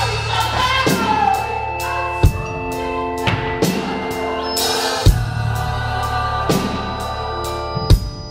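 Musical-theatre band music: sustained chords over a steady bass, with a drum kit keeping a regular beat and a heavy bass-drum hit about every three seconds.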